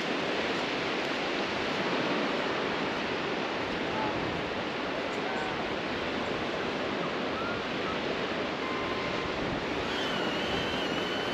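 Steady wash of sea surf and wind on an open beach. About ten seconds in, a thin high steady whine comes in: a small drone's propellers flying close.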